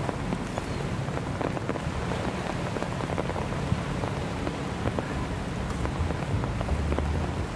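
Heavy rain falling, a dense patter of drops over a steady hiss, with a low rumble underneath that swells near the end.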